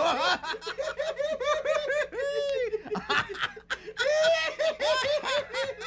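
High-pitched giggling laughter: a long run of quick, short "hee" bursts with a couple of longer held squeals.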